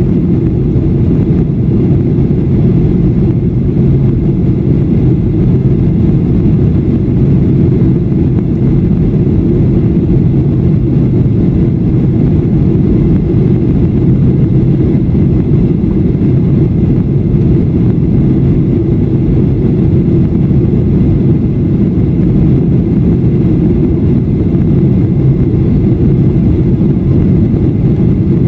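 Steady cabin noise of a jet airliner in flight, heard from inside at a window seat: an unchanging low rumble of engines and rushing air.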